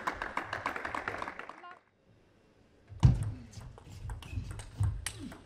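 Table tennis rally: the plastic ball clicking sharply off rackets and table, with low thuds underneath, starting after a brief drop to near silence about two seconds in. Before the gap, a fast patter of light clicks.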